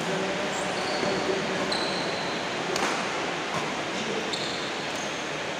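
Badminton rally: court shoes squeak briefly on the floor several times, and a racket strikes the shuttlecock once near the middle, over a steady hiss of hall noise.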